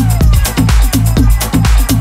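Progressive house music from a DJ mix: a steady kick drum and bassline with crisp hi-hats, under repeated falling synth lines.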